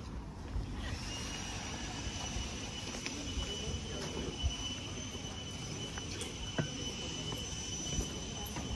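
Outdoor background rumble with a steady high-pitched whine that starts about a second in and holds unchanged, with a few faint clicks.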